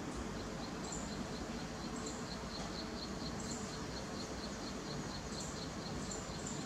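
Steady background hiss with a run of faint, evenly spaced high chirps, about five a second, that stops about two-thirds of the way through, and a few scattered higher chirps.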